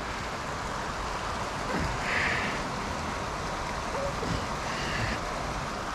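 Steady rush of water pouring over a small river weir.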